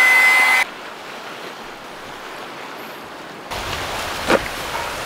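A small electric motor runs with a high whine and cuts off suddenly about half a second in. After a few seconds of faint hiss, sea waves and wind come in, with one sharp knock soon after.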